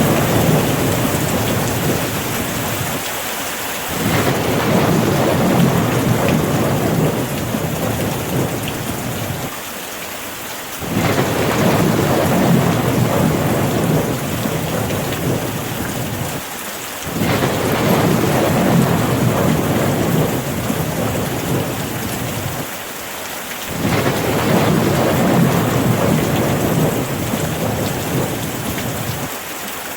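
Steady rain falling, with low rolling thunder that swells and fades about every six or seven seconds.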